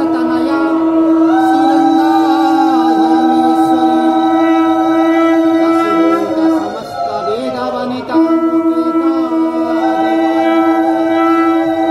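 Devotional music: a long, steadily held horn-like drone note with a wavering sung or piped melody over it. The drone breaks off for about a second and a half midway, then resumes.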